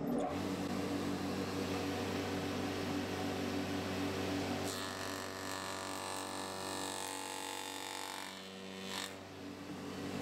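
Steady electric motor hum from woodworking machinery. A brighter whirring layer joins about five seconds in and drops away about nine seconds in.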